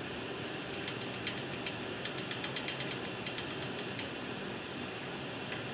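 Twist-on wire connector being screwed onto a splice of ballast wires, giving a quick, uneven run of small ratchet-like clicks for about three seconds, starting about a second in.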